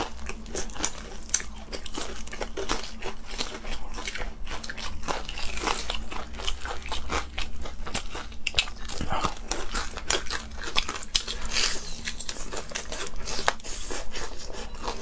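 Crunching bites and chewing of crispy breaded fried cutlets coated in a sticky glaze, dense irregular crunches one after another.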